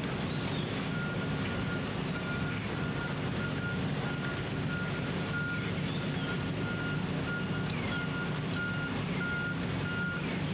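A vehicle's reversing alarm beeping steadily, about one and a half beeps a second, over the low, steady running of an engine. The beeping stops near the end.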